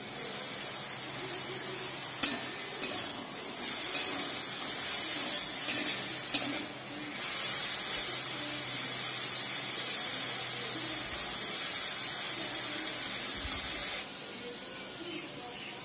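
Chopped green amaranth frying in a metal kadai, with a steady sizzle. A steel spatula scrapes and clinks against the pan a few times in the first seven seconds as the greens are stirred.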